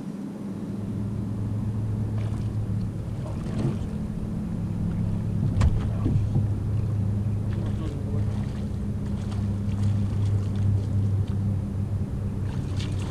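Steady low hum of a motorboat engine running in the boat channel. One short sharp impact comes just before halfway.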